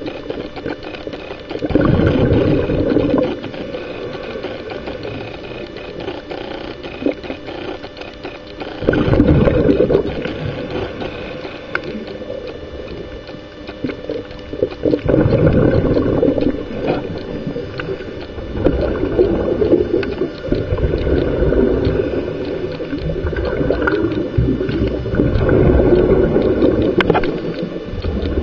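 Scuba breathing heard underwater: exhaled bubbles from a regulator gurgle out in bursts of one to three seconds, about six times, with quieter stretches of inhalation between.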